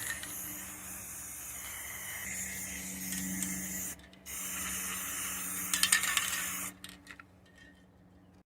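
Aerosol spray paint can hissing in two long sprays, with a short break about four seconds in; the spraying stops about seven seconds in.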